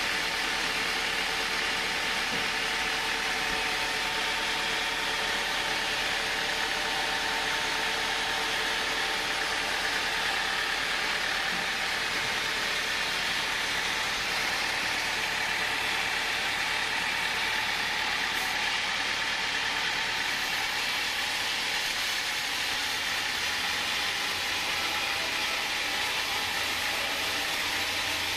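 Rail-carriage band sawmill running steadily, its blade cutting through a large hardwood log: a constant machine drone with the hiss of the saw.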